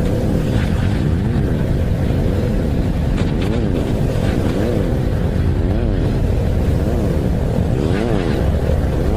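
Spacecraft radio or plasma-wave recording turned into sound: a continuous low rumbling hiss with a steady hum and pitches sweeping up and back down about once a second.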